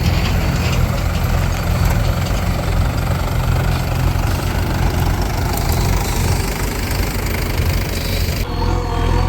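Heavy diesel engine running steadily at a low, even throb, the sound of a backhoe loader and tractors at work loading mud. Near the end the sound changes abruptly and a steadier, humming tone comes in.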